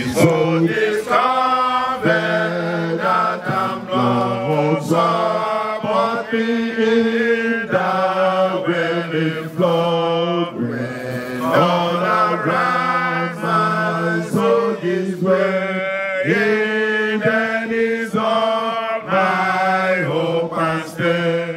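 A group of men's voices chanting together into handheld microphones, in held, wavering sung phrases that run on without a break.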